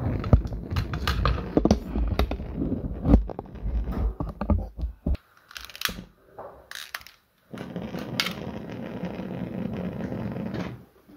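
Clicks and knocks of hands and a small metal hex key working at a gas heater's pilot burner assembly, over handling rumble. After a brief dropout about seven seconds in, a steady even hiss runs for about three seconds.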